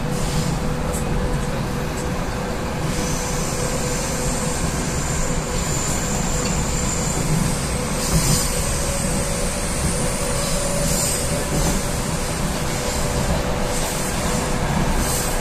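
Moskva-2024 metro train running between stations, heard from inside the car: a steady rumble of wheels on rail with a steady tone above it.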